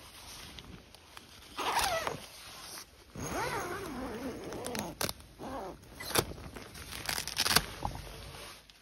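Tent door zipper being pulled open, with several quick rasps in the second half. Before that, in the first half, come wavering, voice-like calls that rise and fall in pitch.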